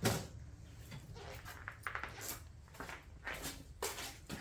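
Scattered light clicks and knocks of hand tools and metal parts being handled during an engine teardown, the sharpest right at the start, over a steady low hum.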